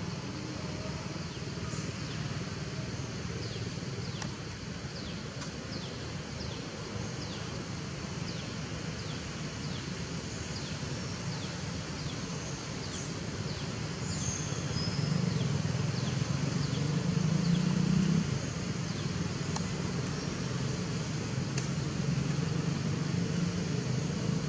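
Outdoor ambience: a steady low rumble that swells from about halfway through and peaks about three quarters in, with short, high, quickly falling chirps from small birds scattered throughout.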